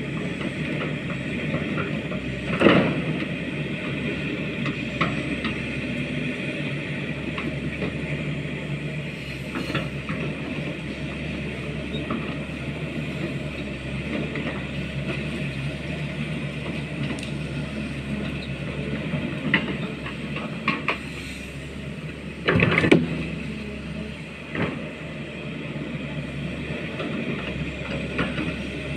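Pindad hydraulic excavator's diesel engine running steadily under work, with a few loud knocks, the loudest about two-thirds of the way through.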